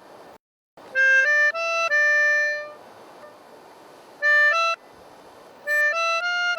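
Short melodic phrases played on a free-reed instrument such as a harmonica, a few stepped notes each: one phrase about a second in, a brief one around four seconds, and another near the end, with quiet pauses between.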